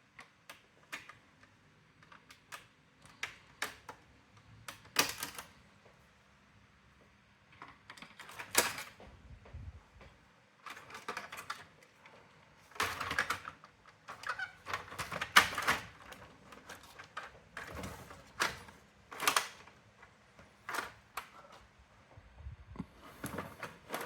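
Irregular clicks and taps with short rattling, scraping stretches from the hard plastic and metal parts of a Brother AX-425 typewriter being handled and taken apart.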